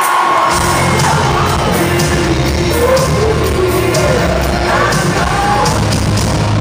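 Rock concert crowd cheering and whooping, over a low, steady bass drone from the stage sound system that starts about half a second in.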